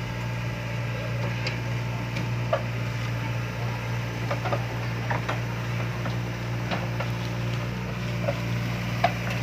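Hitachi excavator's diesel engine running at a steady, even pitch, with scattered light knocks and clicks over it.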